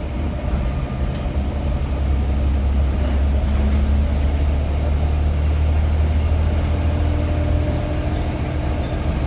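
Volvo B7TL double-decker bus's turbocharged diesel engine pulling hard, a deep drone under a thin, high turbo whistle that rises slowly in pitch as the turbo spools up, then levels off near the end.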